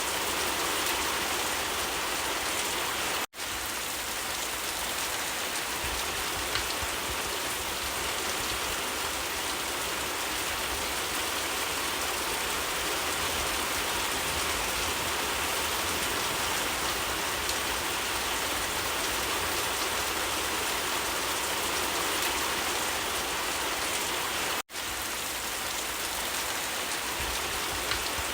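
Steady rain falling, an even hiss of drops, with two split-second dropouts to silence, about three seconds in and again later.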